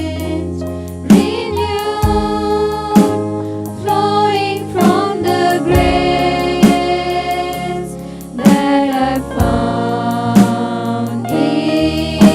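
Congregational worship music: voices singing a gospel song together over bass, guitar and a drum kit with a steady beat.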